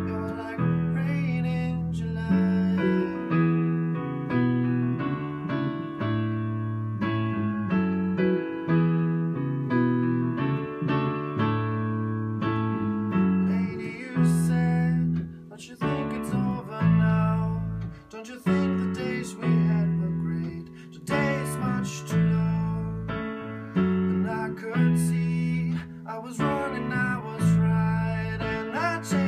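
A band playing a pop song live: chords on a digital stage piano over an electric bass guitar, with a male lead vocal, recorded through the camera's own microphone.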